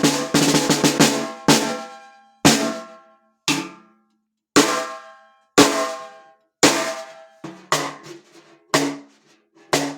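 Pearl brass-shell piccolo snare drum played with sticks: a quick run of strokes at the start, then single hits about once a second, each ringing out with a pitched, metallic overtone.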